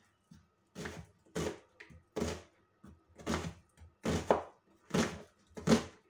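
Kitchen knife chopping an onion on a cutting board, about seven chops in a steady rhythm.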